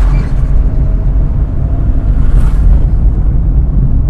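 Steady low rumble of road and engine noise inside a moving car's cabin, with a brief swell of hiss about two and a half seconds in.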